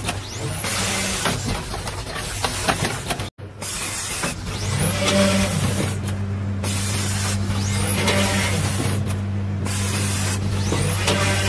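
Rotary premade-pouch (doypack) fill-and-seal machine running: a steady mechanical hum with repeated hissing puffs of compressed air from its pneumatic actuators, and a rising whistle about every three seconds.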